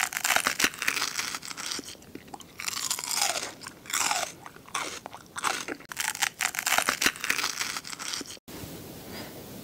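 Close-miked ASMR eating sounds: a quick run of loud, crunchy bites and chewing on crisp food. About eight and a half seconds in it cuts off abruptly to a steady, faint hiss.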